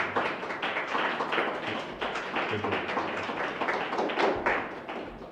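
Audience applauding: many hands clapping in quick, separate claps, thinning out near the end.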